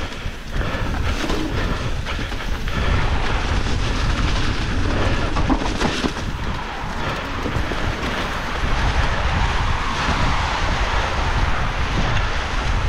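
Continuous rumble and rattle of an electric mountain bike being ridden over a wet, muddy forest trail, with scattered knocks from the bike over rough ground and wind on the microphone.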